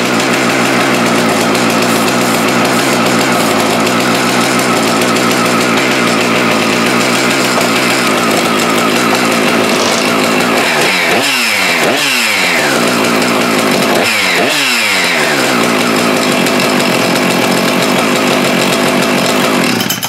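A Husqvarna chainsaw's two-stroke engine runs steadily after a leaking crankcase seal has been replaced, showing that the saw now runs. Twice, past the middle, its engine speed dips and recovers. It stops abruptly at the end.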